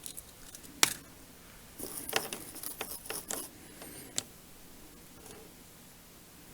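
Small hand tools and wires being handled on a workbench: a sharp click about a second in, a cluster of quick clicks, rattles and scrapes around two to three seconds in, and one more sharp click near four seconds.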